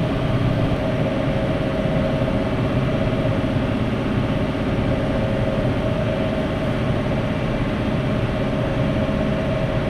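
Tractor engine running steadily under load while pulling a round baler through barley straw, with a constant whine over it.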